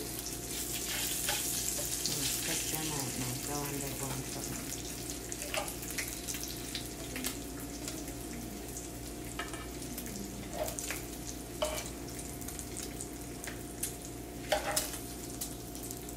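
Bacon sizzling in a frying pan, a steady high hiss, with a few sharp clicks of metal tongs and a spatula against the pan as the strips are turned and lifted out.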